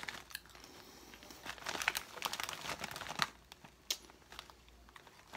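A Ruffles Double Crunch chip bag crinkling as it is handled and turned over, in irregular crackles that are busiest in the middle, with one sharp crackle about four seconds in.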